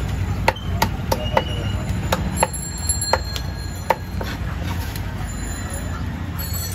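Tilapia being scaled against a metal blade: sharp, irregular clicks and scrapes, several close together in the first four seconds, over a steady low rumble.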